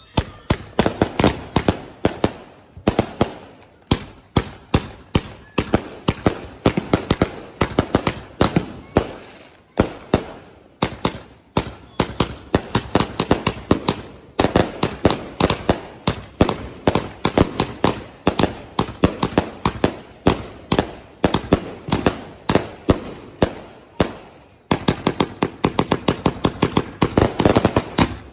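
A 267-shot "Nuclear Man" consumer firework cake firing shot after shot: a rapid string of sharp bangs with a few brief pauses, coming faster near the end.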